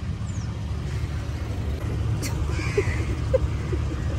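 Car engine idling with a steady low rumble, with a few light knocks and a sharp click a little over two seconds in.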